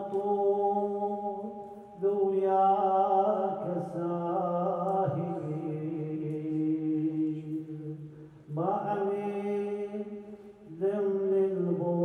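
A man's solo voice chanting an Arabic Muharram elegy for Imam Husayn. It moves in long, drawn-out phrases with held, wavering notes, broken by short pauses for breath.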